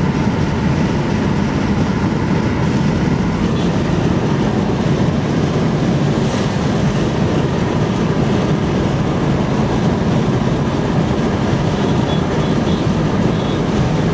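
Steady low rumble of road and wind noise inside a car's cabin while driving at highway speed.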